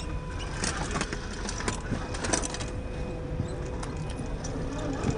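Brushed 550 electric motor and drivetrain of a 1/10-scale SCX10 II rock crawler whining steadily. Its tires and chassis click and crackle against rock, most densely in the first half.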